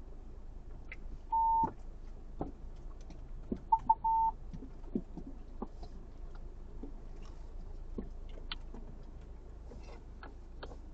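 Electronic beeps at one steady pitch: a single beep held for under half a second, then about two seconds later two short beeps and a longer one, over faint scattered clicks and knocks.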